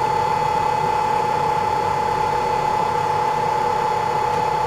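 Zhuomao ZM-R5830 BGA rework station running a heating cycle, with its hot-air heaters and fans blowing. It makes a steady airy whir with one clear whine and a fainter lower tone, while it heats a chip toward the 260 °C melting point of lead-free solder so the chip can be lifted off.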